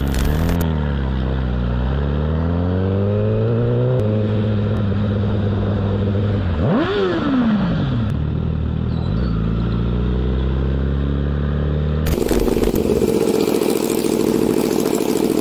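Sport-bike engine heard from the rider's seat, its note dipping and climbing, then settling lower after a gear change about four seconds in, with one quick rev up and back down about halfway through. Near the end a different motorcycle takes over, running steadily with a rougher, noisier note.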